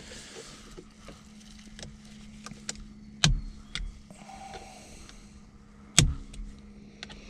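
Allen key working on small steering wheel bolts: scattered metal clicks and scrapes with two sharp knocks, about three seconds and six seconds in, as the key slips in the loose-fitting bolt head, over a steady low hum.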